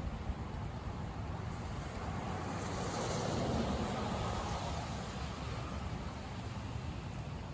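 Car driving on a wet road: a steady rumble with tyre hiss, swelling to a louder wash of spray about three seconds in and fading again a couple of seconds later.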